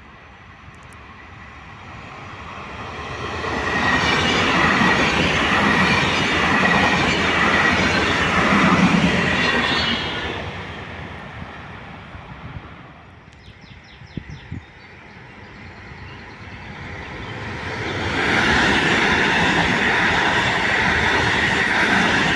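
A train running through a station: a loud rush of wheels on rail with a steady high squeal. It builds over the first few seconds, eases off about halfway with a few sharp ticks, then swells again and stays loud.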